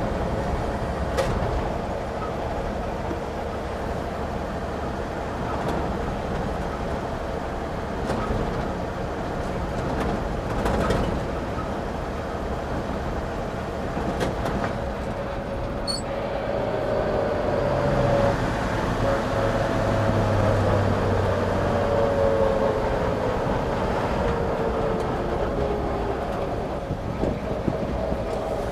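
A 1949 GMC pickup's 228 cubic inch inline six running under way, with road noise and the old truck's body rattles, and a few short knocks. In the second half a whining tone slides gradually down in pitch.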